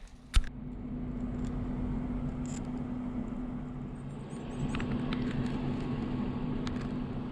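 Van engine idling steadily while it warms up, a low even hum. A single sharp knock comes just after the start.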